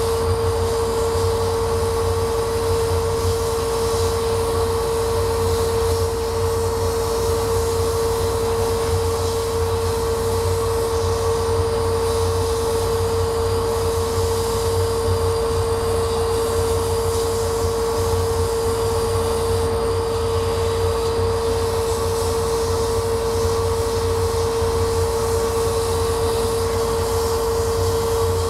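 Laser cutter running as it cuts: a steady machine drone, like a blower or vacuum, with one strong constant hum note.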